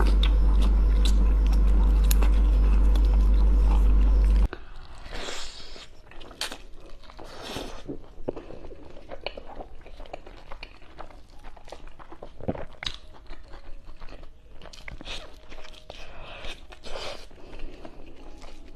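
Close-miked eating sounds: for the first four and a half seconds, bites and mouth clicks over a loud steady low hum while whole shrimp are eaten by hand. The hum stops abruptly and the rest is quieter chewing and mouth noises with scattered clicks as spicy instant noodles and a fried egg are eaten with chopsticks.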